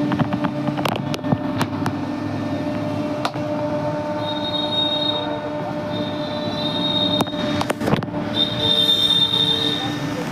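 CNC router carving a 3D wall panel: the spindle runs with a steady hum while the bit cutting into the panel gives off a high-pitched squeal that comes and goes, twice for a second or two, among scattered sharp clicks.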